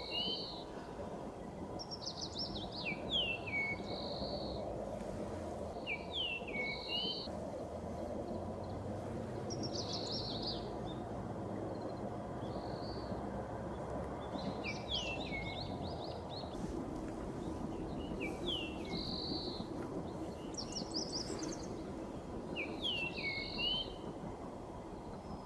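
Japanese grosbeak singing: short phrases of clear whistled notes, some sliding downward, repeated every two to three seconds over a steady low background rumble.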